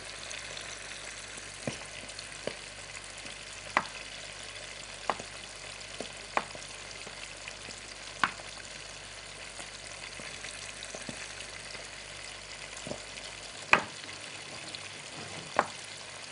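Chef's knife tapping and chopping on a wooden cutting board as green olives are sliced: about a dozen irregular sharp taps. Under them runs a steady sizzle of mushrooms frying in hot oil.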